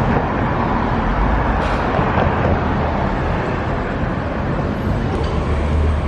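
Street traffic with cars passing and a steady low engine rumble.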